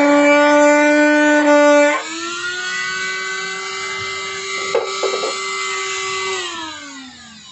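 Flexible-shaft rotary tool whining while pressed into the plastic motorcycle fender, its pitch held low under load. About two seconds in it is lifted off: it gets quieter and the whine jumps higher as it spins free, then near the end it is switched off and the pitch falls as it winds down.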